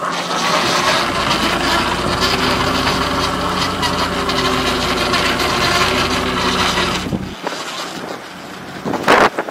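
Lobster boat's engine running at a steady, raised speed, loud, then cutting out about seven seconds in. A few sharp clatters near the end.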